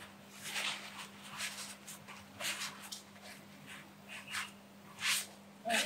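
Paper towels crinkling and rustling as they are scrunched and wiped over a tiled floor, in short bursts every second or so.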